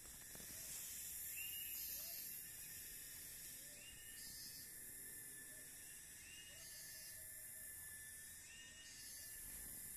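Faint outdoor background sound: a steady high hiss with a short call repeating about every two seconds.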